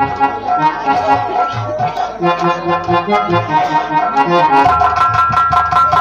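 Harmonium playing a stepped folk melody of held notes, with drum strokes underneath that come quicker near the end.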